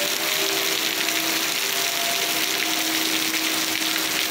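Heavy rain hissing steadily, with tornado warning sirens sounding faintly underneath as a few thin tones that slowly rise and fall.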